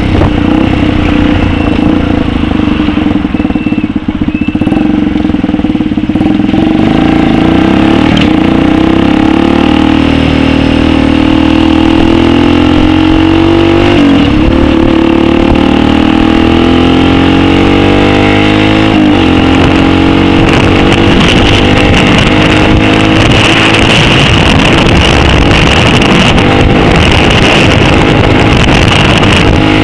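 Megelli 125m supermoto's single-cylinder four-stroke engine running under way, its revs climbing and dropping back twice as it shifts through the gears.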